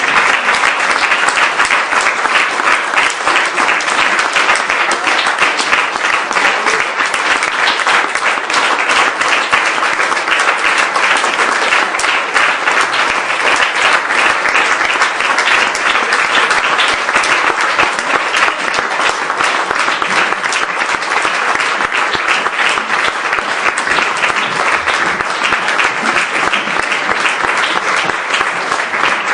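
Audience applauding: many hands clapping in a dense, steady wash.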